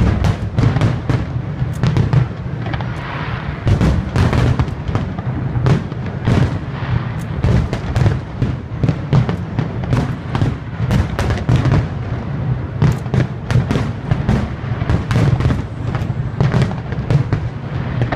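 Aerial fireworks display at full intensity: many shells bursting in quick succession, sharp bangs several a second over a continuous low rumble.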